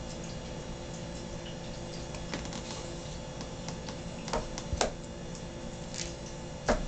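Small plastic Play-Doh tubs and lids clacking and tapping as they are handled and fitted together, a few scattered sharp clicks with the loudest near the end, over a steady low hum.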